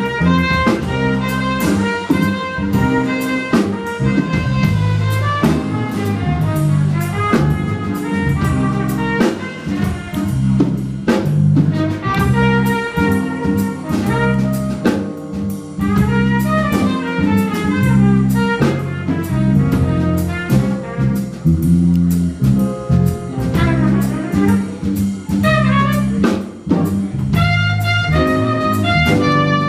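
Live jazz band playing an instrumental number: keyboard, bass and drum kit, with a busy melody line on top.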